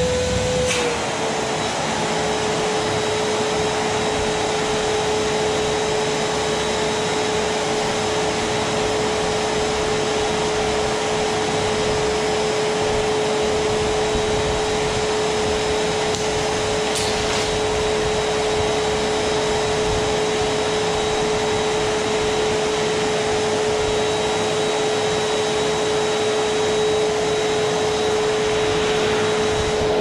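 Rowenta stainless-steel drum vacuum cleaner running steadily, a constant rush of suction with a steady motor whine. About a second in the whine dips slightly in pitch and then holds level.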